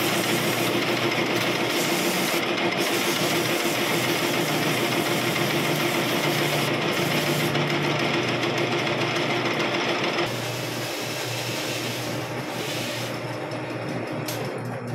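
Metal lathe running with a hand-held abrasive stone pressed against the small spinning gear blank to smooth it. About ten seconds in, the machine's steady running sound drops and the lathe comes to a stop.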